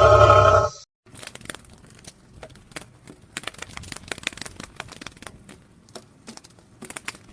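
A loud, low animal call cuts off under a second in. It is followed by a run of irregular, crisp crunching and crinkling clicks.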